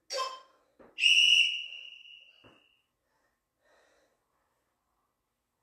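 Interval timer sounding one high electronic beep about a second in, fading out over nearly two seconds: the signal that a work interval is starting. A faint knock follows.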